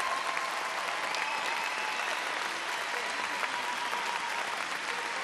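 Theatre audience applauding, the steady clapping of many hands as the music of the dance number has ended.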